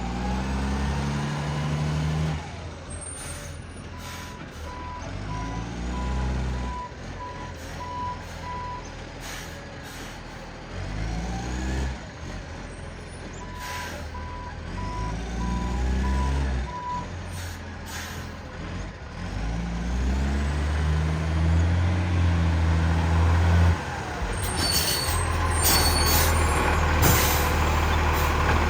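Garbage truck engine revving up and falling back several times, its exhaust badly leaking, with two runs of reversing beeps and short sharp air hisses in between. The engine is loudest and most continuous in the second half.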